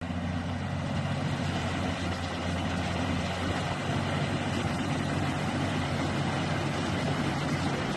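Excavator's diesel engine running steadily with a low, even hum.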